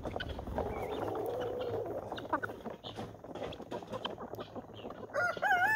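Chickens feeding, with one drawn-out wavering call early on and scattered short ticks. Near the end a rooster starts crowing, the loudest sound.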